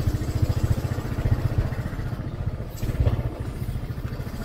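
Small motorcycle engine running steadily at low revs while being ridden slowly, its exhaust giving a rapid, even putter.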